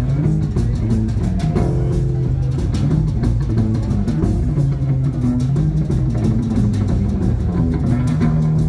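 Live band playing loud amplified music: two electric guitars, an electric bass guitar and a drum kit, in a stretch without singing.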